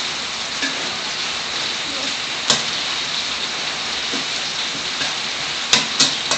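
Minced pork and garlic sizzling steadily in hot oil in a wok, stirred with a metal spatula that clacks against the wok once about two and a half seconds in and twice near the end.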